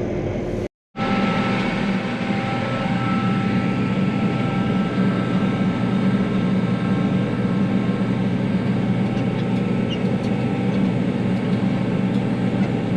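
Tractor engine running steadily under load, heard as a continuous drone from the cab. It cuts out completely for a moment just under a second in, then resumes.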